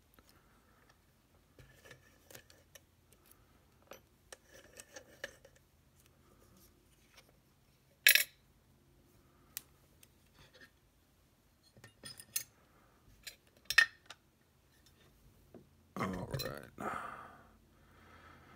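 Scattered light metallic clicks and clinks as a padlock and metal tools are handled. Two sharper clicks stand out, about 8 and 14 seconds in, and a longer scraping noise comes near the end.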